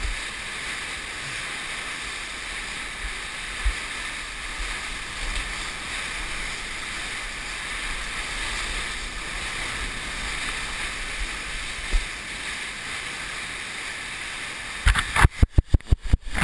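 Steady rush of fast river water around a surfboard riding a standing wave, heard through a GoPro, with occasional low wind thumps on the microphone. Near the end, a quick run of about eight sharp knocks and splashes as the board ploughs into whitewater.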